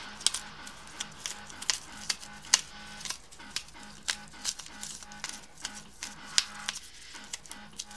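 Knife blade gouging and scraping into a block of polystyrene packing foam: irregular sharp scratches and crackles, several a second, as the foam is carved out.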